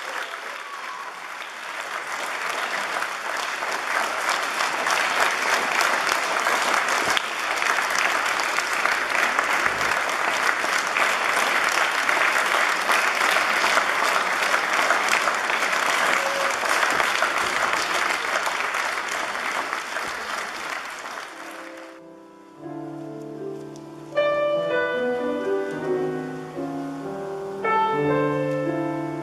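Audience applauding, dying away about 22 seconds in; then a grand piano starts playing solo, with held chords that change every second or two.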